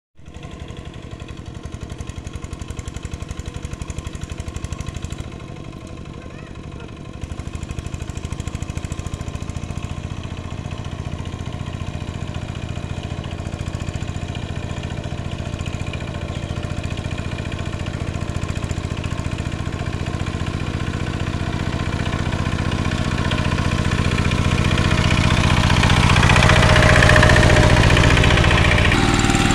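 Single-cylinder diesel engine of a two-wheel walking tractor running under load as it hauls a trailer through mud. It grows steadily louder as it approaches and is loudest near the end, when it comes close.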